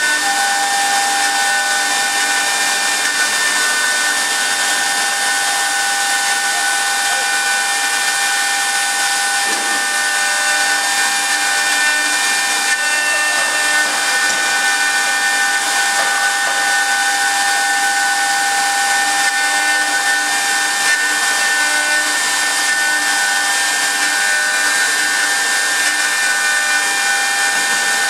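Air-cooled spindle of a CNC wood turning lathe running at high speed: a steady whine of several held tones over a loud hiss.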